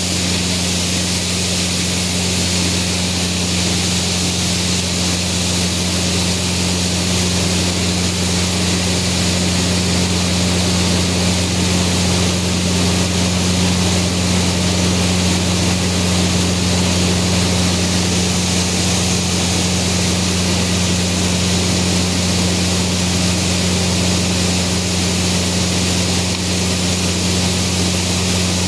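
Farm machinery engine running steadily at constant speed: a low, even drone with a strong hiss over it.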